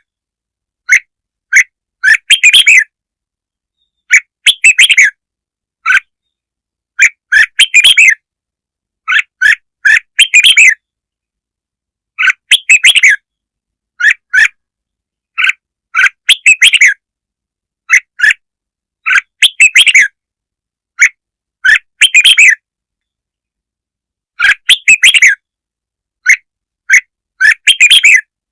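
Red-whiskered bulbul song: loud, short warbling phrases repeated every second or two with silence between them. It is a lure-call recording played to draw in bulbuls.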